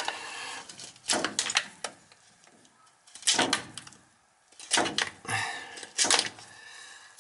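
Small knife scraping and slicing through the orange plastic coating on a copper oil line, in four short bursts of strokes, stripping the coating off the tube end.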